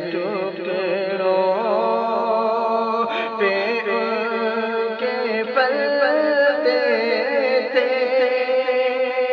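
A man singing an Urdu devotional song (naat) in long held notes that waver up and down in ornaments.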